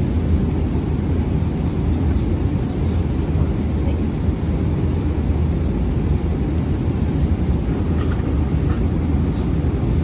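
Steady low rumble of an airliner in flight: engine and airflow noise heard inside the passenger cabin.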